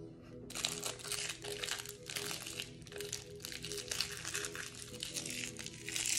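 Plastic shrink-wrap crinkling and tearing as it is pulled off a deck of game cards, starting about half a second in.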